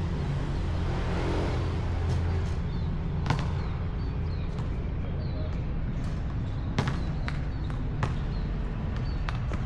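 A basketball bouncing on an outdoor court, giving about four sharp knocks at irregular intervals over a steady low background rumble.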